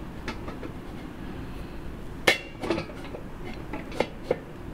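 Small brass fittings clinking and tapping against the metal top of a brass ship light as they are fiddled into place. One sharp clink comes a little past two seconds in, followed by a few lighter taps.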